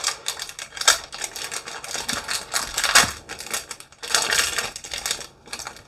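Foil booster-pack wrapper crinkling and tearing as it is ripped open, then rustling as the stack of trading cards is pulled out, in irregular crackly bursts and sharp clicks.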